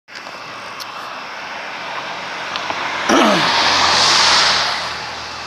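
A car passing close by on the road: its tyre and engine noise builds, surges about three seconds in with a falling pitch, then fades away.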